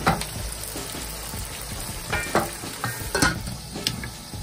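Onions and tomatoes sizzling in hot oil in a wok, stirred with a wooden spatula, with a few short knocks and clinks against the pan.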